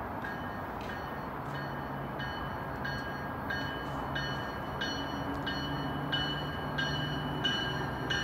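Approaching train's bell ringing evenly, about three strikes every two seconds, growing louder as the train nears the platform, over a low steady drone from the train.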